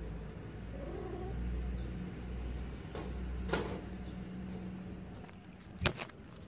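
Kitten meowing faintly about a second in, then a couple of light knocks around the middle as it pounces on a small ball on the tile floor. Two sharp clicks near the end, the loudest sounds, come from the phone being handled.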